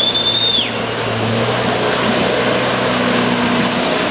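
Troller 4x4's diesel engine running at steady revs under load as it churns through deep mud. A brief high whistle rises, holds and falls away at the very start.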